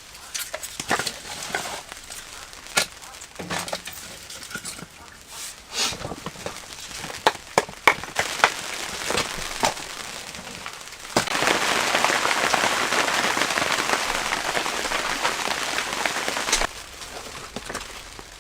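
Campfire crackling with sharp, irregular pops. About eleven seconds in a loud steady hiss starts suddenly and lasts about five seconds before cutting off.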